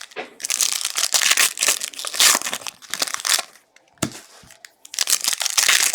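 Plastic trading-card pack wrappers crinkling and tearing as packs are ripped open and handled, in several spells with short pauses between.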